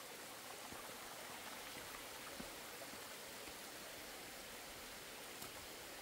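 Faint, steady rush of a mountain stream running over wet rock slabs, with a few faint knocks.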